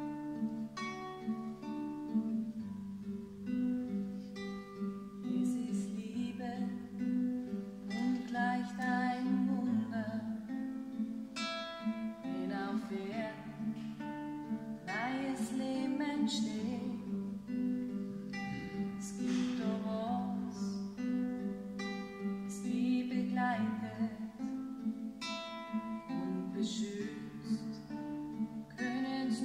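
Nylon-string classical guitar playing a slow accompaniment, with a voice singing over it from about six seconds in.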